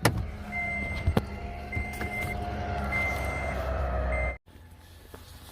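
Toyota Tacoma heard from inside the cab: the engine running with a high electronic warning beep sounding about every second. The engine and the beeps cut off abruptly about four seconds in.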